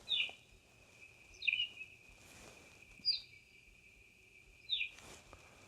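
Recorded call of a plain-backed pipit played back through a bird-book reading pen's small speaker: four short chirping phrases about a second and a half apart, over a faint steady high tone.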